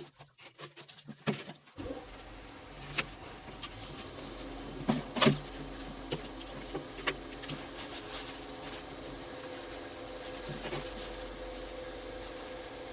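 A machine running with a steady hum that starts about two seconds in, with a few sharp knocks over it, the loudest about five seconds in.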